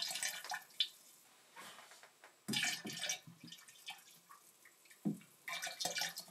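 Liquid chemical cleaner poured from a plastic bottle into a plastic boiler feed tank, pouring and splashing faintly in a few short spells.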